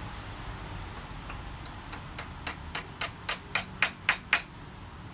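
A dozen light hammer taps on the small steel head of a tiny ball peen hammer, driving it down onto its wooden handle. The taps come three to four a second, each a sharp metallic click, and grow louder before stopping.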